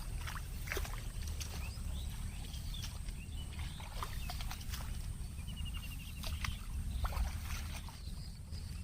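Outdoor ambience: a steady low rumble, with scattered faint chirps and clicks and a brief rapid trill about five and a half seconds in.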